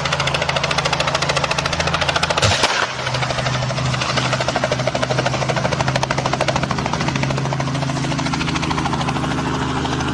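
Small light helicopter's main rotor chopping fast and close, over a steady engine drone. About two and a half seconds in, a sudden loud burst as the helicopter strikes a power line, then the rotor chop carries on.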